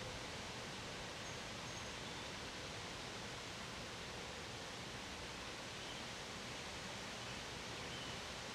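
Steady wind outdoors: an even, unbroken rush with rustling.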